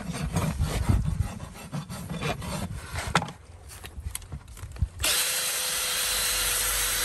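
Farrier's rasp filing a horse's hoof in repeated scraping strokes, fading out about five seconds in. After that comes a steady hiss with a faint hum.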